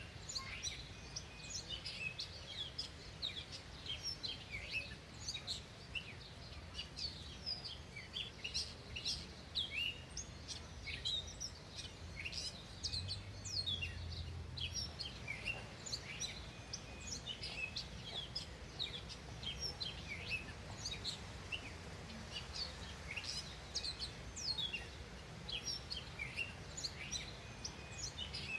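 Many small songbirds chirping continuously, a dense chatter of short, quick, falling chirps over a low rumble that swells briefly about halfway.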